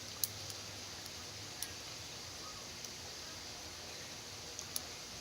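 Lock pick working the pin stack of a 100G padlock under tension: a few scattered small metallic clicks over a steady hiss, the kind of clicking the picker takes for serrated pins catching at the shear line.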